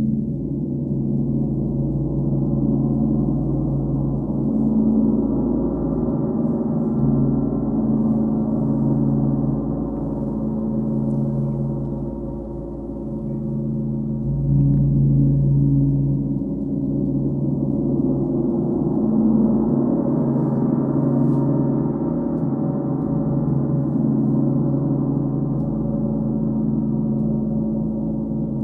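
Large hanging gong played continuously with soft mallets: a sustained low, humming wash of tones that swells and eases in slow waves.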